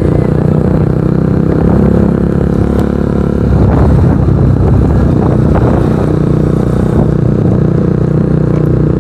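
Kawasaki NS150's single-cylinder engine running through an aftermarket Akrapovic exhaust, a steady exhaust note that gets louder and rougher about three and a half seconds in.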